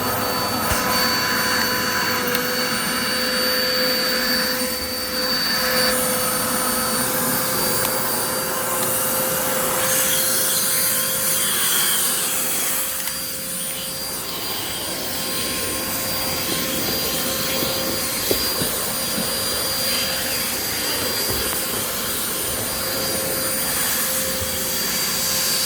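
Kenmore Progressive vacuum cleaner running steadily: a rush of air under a high, steady motor whine, dipping a little about halfway through.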